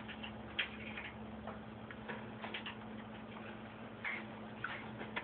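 Scattered light clicks and scrapes of hands and arms working inside a washing machine, knocking against the drum and parts, with a steady low hum underneath.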